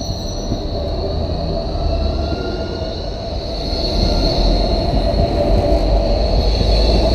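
Electric tram running on street track: wheels rumbling on the rails under a steady high-pitched wheel squeal, with a faint rising motor whine about two seconds in. It grows louder from about four seconds in as a tram passes close by.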